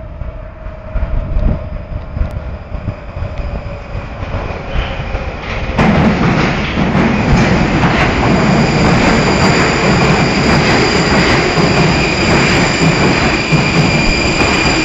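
Prague metro 81-71M train arriving at a station. Its rumble in the tunnel grows louder and jumps suddenly about six seconds in as it reaches the platform, then goes on as loud wheel-and-rail noise from the passing cars, with a steady high squeal over it.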